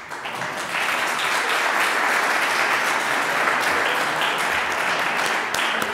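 Audience applauding. The clapping starts abruptly, swells within the first second, then holds steady.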